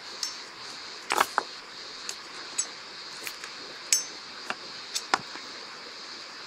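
Metal shovel clinking and scraping on stones as hot stones are lifted from a wood fire into a cooking pit. About ten irregular sharp clinks and knocks, the loudest about a second in and near four seconds, over a steady high hiss.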